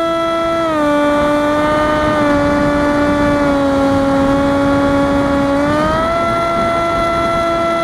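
Electric motor and 6-inch propeller of an FPV flying wing running with a steady whine, over a hiss of air rushing past. The pitch drops slightly about a second in, sinks a little further, then climbs back up about six seconds in.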